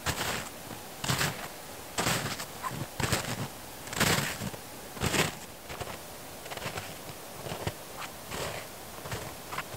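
Footsteps crunching in snow, about one step a second, louder for the first five seconds and fainter after.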